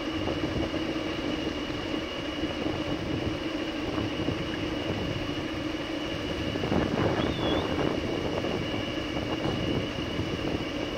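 Heavy construction machinery running: a steady diesel engine drone with a constant high-pitched whine, growing briefly louder about two-thirds of the way through.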